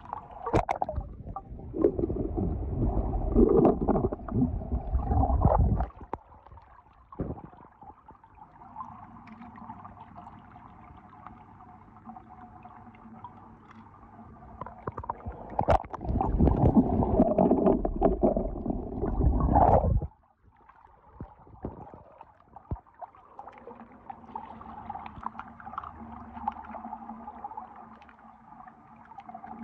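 Water sloshing and gurgling in two louder stretches of about five seconds each, with a fainter steady hum in between and after.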